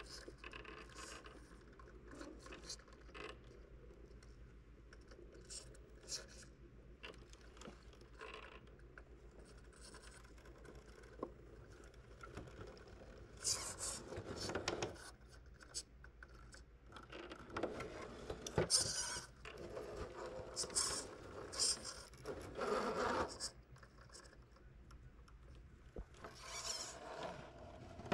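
Redcat Ascent RC rock crawler's tyres and chassis scraping and grinding over rock as it crawls slowly, with scattered clicks. There are louder scrapes about halfway through and a few more later.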